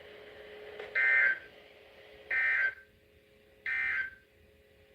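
EAS end-of-message code from a NOAA Weather Radio receiver: three short bursts of SAME digital data tones, about a second and a quarter apart, marking the end of the severe thunderstorm warning broadcast. A faint steady low tone runs beneath them.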